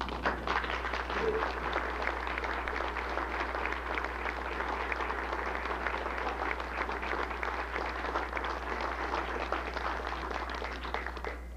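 Audience applauding: dense clapping from many hands that stops abruptly near the end.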